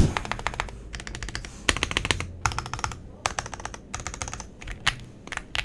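Fast typing on an Ajazz AK980 full-size mechanical keyboard with Ajazz Gift switches and double-shot PBT keycaps: rapid runs of keystroke clacks in several bursts with short pauses between them.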